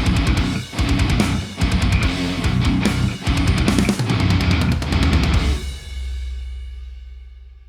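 Background rock music with electric guitar and drums, ending on a held chord that fades out from about five and a half seconds in.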